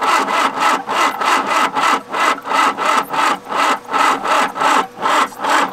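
Citroen CX2500D's four-cylinder diesel engine being cranked on the starter, an even rhythm of about four compression pulses a second, without firing. It is being cranked to push fuel through after sitting over ten years, with the injector lines cracked open to bleed the air out.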